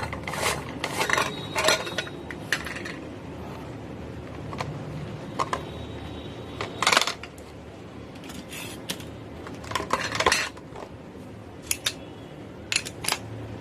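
Irregular clicks and clatters of a camping LED lantern's plastic housing being handled and worked open, the loudest knock about seven seconds in and another cluster around ten seconds.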